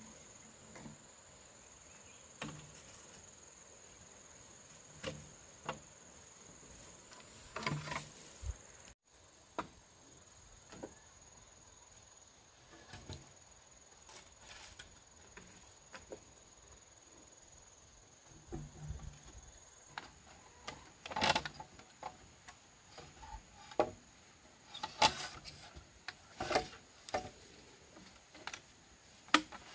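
Bamboo poles knocking and clacking as they are handled and fitted onto a bamboo frame. The knocks come scattered at first, then thicker and louder in the second half, over a steady high drone of insects.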